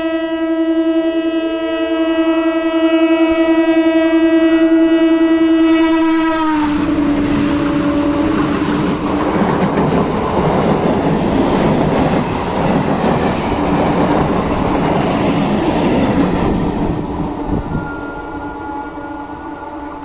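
Electric multiple unit (EMU) local train sounding one long, steady horn blast for about six seconds as it approaches, the note dropping slightly as it cuts off. The train then passes at speed with loud wheel clatter and rumble, which eases off near the end.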